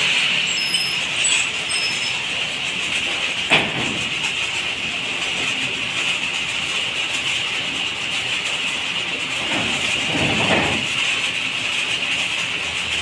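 Steady mechanical clatter and hiss, with a single sharp metal clank about three and a half seconds in and a longer scraping sound around ten seconds in, as a power loom's metal frame is handled and loaded onto a pickup truck's bed.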